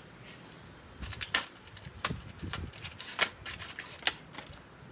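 Plastic blister packaging of a tire repair kit being handled, with irregular sharp clicks and crinkles starting about a second in.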